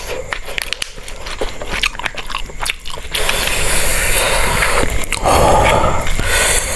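Close-miked eating sounds: crisp crunching and chewing clicks for about three seconds, then a louder continuous rushing noise.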